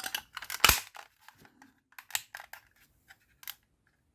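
Small hard-plastic parts of a car boot torch being handled and snapped together: a string of sharp clicks and rattles, the loudest under a second in, then a few sparser clicks.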